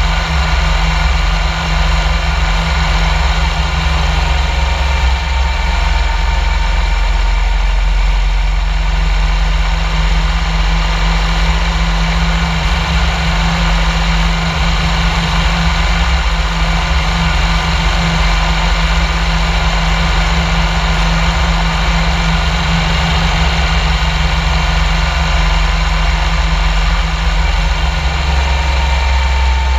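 Motorcycle engine running steadily at cruising speed, its hum holding an even pitch, under a steady rushing noise of road and wind.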